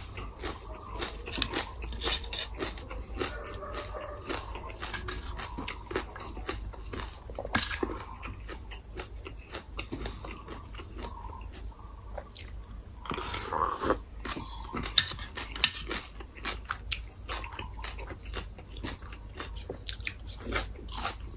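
A person chewing and crunching mouthfuls of Thai green papaya salad, with many short crisp crunches and wet chewing throughout and a denser run of crunches about two-thirds of the way through. Near the end he bites into a boiled bamboo shoot.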